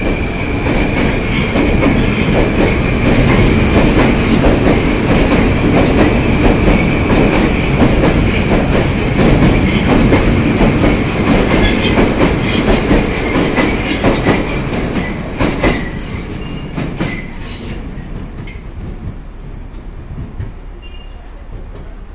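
Moscow Metro 81-765/766/767 train accelerating out of the station, its wheels clattering over the rail joints under a steady high whine from the traction drive. The train grows loud, then fades away over the last several seconds as it leaves.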